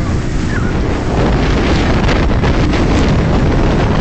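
Speedboat under way: wind rushing over the microphone together with the hull running through choppy water, a dense steady noise that gets a little louder about a second in.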